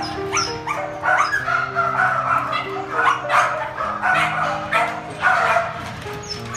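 Dogs barking and yipping repeatedly over background music with held notes.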